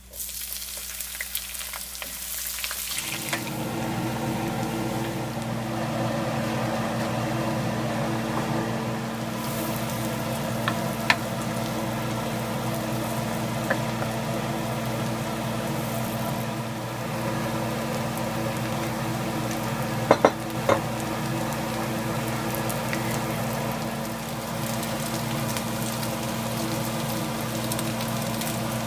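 Dried shrimps, then sliced shiitake mushrooms, sizzling in hot oil in a nonstick wok as they are stir-fried with a wooden spatula. The sizzle is loudest in the first few seconds, and the spatula knocks against the pan a few times, twice in quick succession about two-thirds of the way through.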